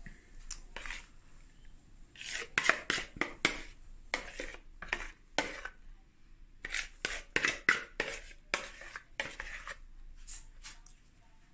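Metal spoon scraping and knocking against the inside of a plastic bowl while scooping out whipped cream: a run of short, irregular scrapes and taps.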